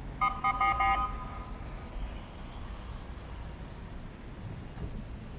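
A vehicle horn tooting several times in quick succession for about a second, over steady street traffic rumble.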